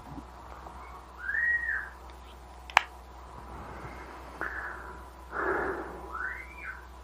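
Two short whistled notes, each rising and then falling, a few seconds apart. Between them comes a single sharp click, and a soft noisy puff comes just before the second note.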